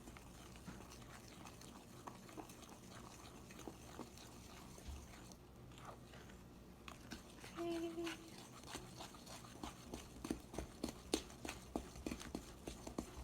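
Wooden spoon stirring thick cookie-like batter in a mixing bowl: faint scraping and clicking strokes that come faster and louder in the second half.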